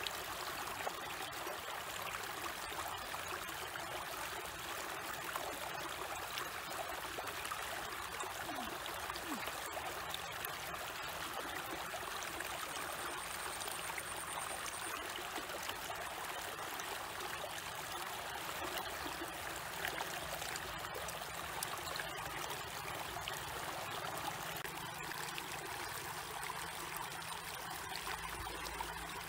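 Shallow stream of water spilling over a small drop, a steady flowing and trickling sound.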